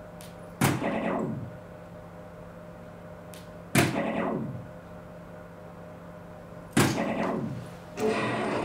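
Three soft-tip darts striking an electronic dartboard about three seconds apart, each hit followed by the machine's short sound falling in pitch. Another machine sound starts near the end, over a steady faint hum.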